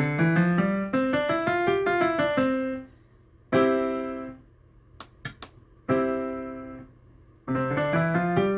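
AODSK S-200 digital piano played with its intensity setting turned up, which makes it louder: a quick run of notes, then three single chords that ring and fade, the last one rolled. A few short clicks come between the second and third chords.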